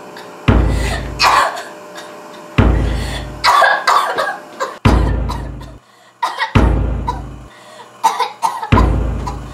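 Deep booming hits in the soundtrack, five of them about two seconds apart, each starting sharply and fading away. Between them a girl coughs in the smoke.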